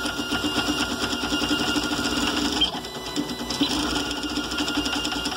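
3D printer's stepper motors buzzing and whining as the print head darts back and forth at 400 mm/s print speed and 16 m/s² acceleration, far faster than the machine has been tuned for. A continuous busy machine noise that rises and dips quickly with each move.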